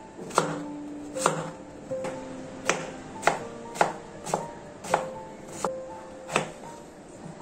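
Kitchen knife chopping carrot and beetroot on a wooden cutting board: about ten sharp chops, one every half second or so, with background music.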